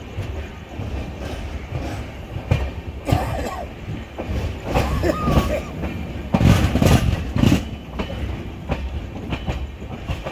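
Passenger train coach running through a station yard, heard from its open doorway: wheels clattering over rail joints and points above a steady low rumble. The clanking grows loudest a little past the middle.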